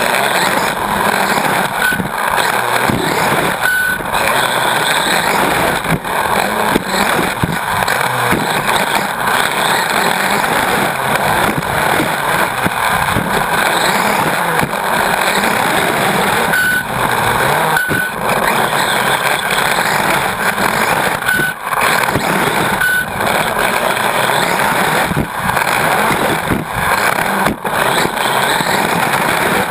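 Onboard sound of a Team Associated RC8.2e 1/8-scale brushless electric buggy racing on a dirt track: motor and drivetrain whine rising and falling with the throttle over tyre and chassis noise. Knocks come from bumps and jump landings.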